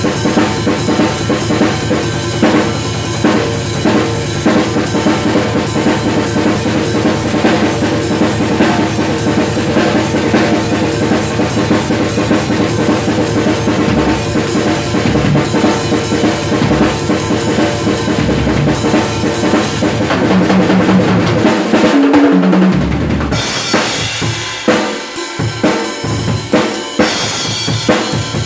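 A drum kit played hard and fast: steady kick drum and snare strokes with toms and Zildjian, Meinl and Paiste RUDE cymbals. About three-quarters of the way in the pattern changes to sparser kicks under more cymbal.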